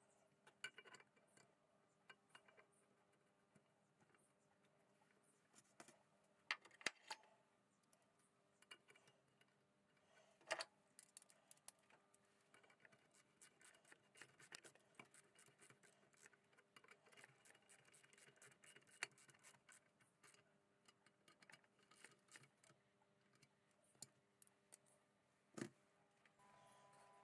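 Faint clicks and scratches of small metal parts and locking wire being handled and twisted on an aluminium motorcycle crankcase, with a few sharper clicks and a stretch of small quick ticks through the middle.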